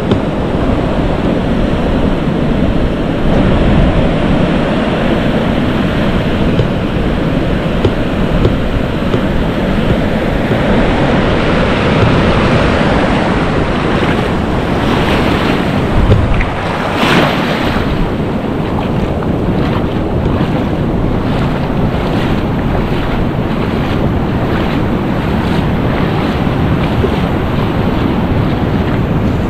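Surf washing up a sandy beach, with wind buffeting the microphone throughout; a wave rushes in about halfway through.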